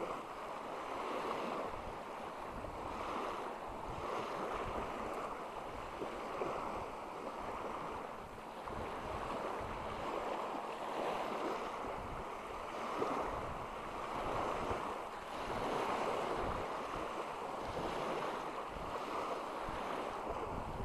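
Small wind-driven waves splashing against the water's edge, swelling and fading every second or two, with wind gusting on the microphone.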